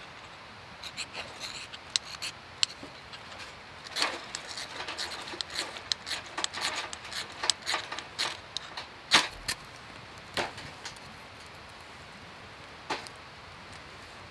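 A run of irregular small clicks, clacks and knocks, as of hard objects being handled, densest in the middle and then dying away, with one last knock near the end.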